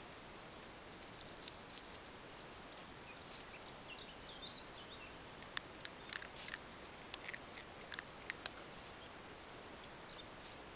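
Two small pinscher dogs foraging for dry kibble in grass: faint, scattered clicks and crackles of dry grass being nosed through and kibble being crunched, over a steady hiss. The clicks come thickest in the second half.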